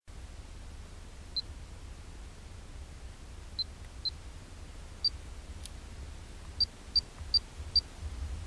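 Short, high electronic button beeps, sparse at first and then four in quick succession near the end, with one click among them, over a steady low rumble.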